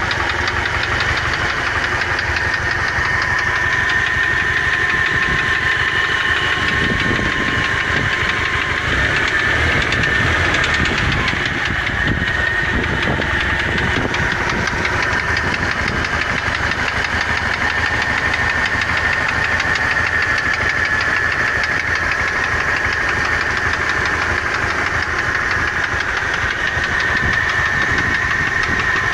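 ZMZ-406 16-valve four-cylinder engine running with a steady, rapid knock. The owner reports that the knock comes at idle and when the throttle is released and disappears under load, and that new hydraulic lifters and fresh oil quieted it only briefly.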